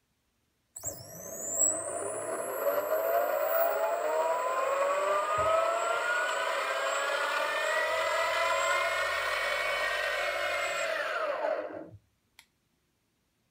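Electric skateboard's brushless belt-drive motor, driven by a VESC speed controller from the remote's throttle, spinning up unloaded with a whine that rises steadily in pitch for about ten seconds, over a high steady electronic whine. Near the end it winds down quickly and stops.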